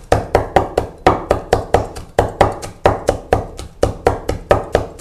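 Steel cleaver chopping red chillies into a minced mixture on a thick wooden cutting board: a steady run of sharp knocks, about four or five a second.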